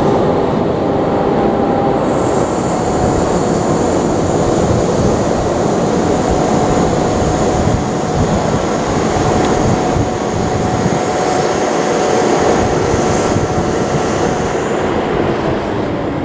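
Freight train hauled by an ED76 electric locomotive, its container wagons rolling past at close range with a loud, steady rumble of wheels on rail and a faint high-pitched ring over it.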